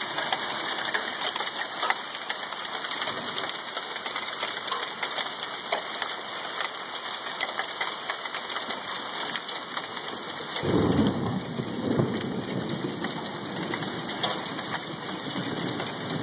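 Nickel-sized hail and rain falling, a steady hiss dotted with many small sharp ticks of stones hitting. About ten seconds in, a low rumble swells for a couple of seconds.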